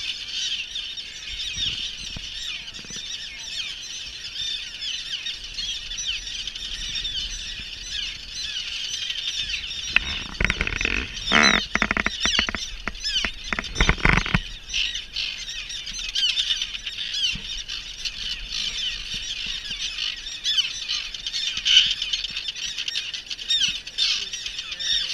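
Dense chorus of common terns calling over their nesting colony, many short harsh calls overlapping without pause. From about ten to fourteen seconds in, close rustling and knocks as a wire-mesh nest trap is handled.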